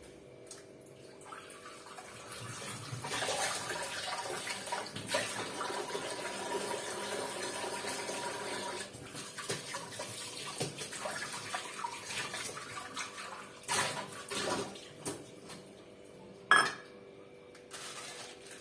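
Steady rushing, water-like noise for several seconds, then dishes and a spoon clinking and knocking, with one sharp knock near the end.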